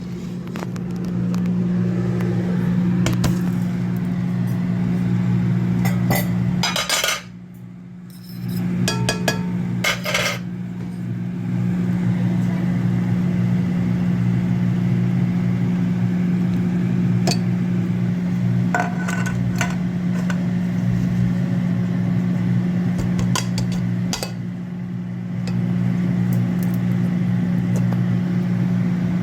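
A steady low hum, with scattered clinks and knocks of dishes and utensils. The hum drops out briefly about a quarter of the way in.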